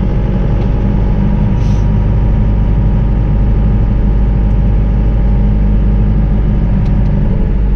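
Cummins 4BT four-cylinder turbo diesel running at a steady pitch as the truck drives along, heard from inside the cab with road noise.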